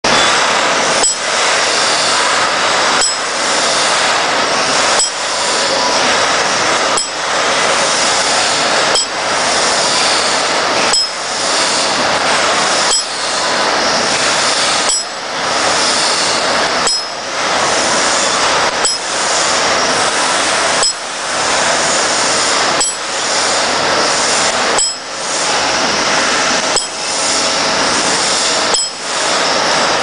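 Automatic wire buckle-forming machine running, its tooling clinking and clacking through one forming cycle about every two seconds as it bends steel wire into square buckle clips, over a steady high hiss.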